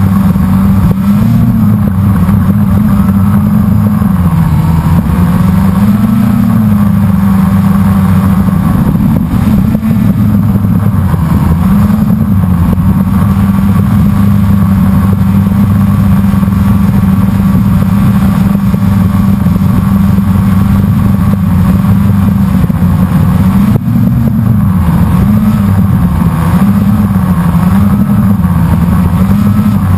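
Blade 350 QX quadcopter's four brushless motors and propellers whirring loudly, heard close up from its onboard camera. The pitch wavers up and down as the motors speed up and slow to steer: during the first few seconds and again near the end.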